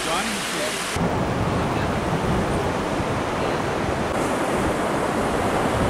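Steady rush of surf breaking on a sandy beach, with wind blowing on the microphone; about a second in the sound shifts abruptly to a heavier, lower rumble.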